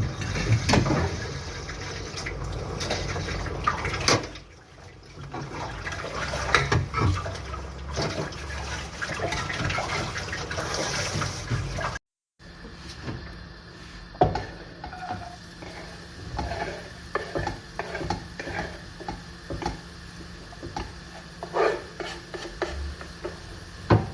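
Water pouring and running into a kitchen sink, with knocks and clinks of a pot and utensils. After a cut about halfway, the water is quieter and the clatter goes on.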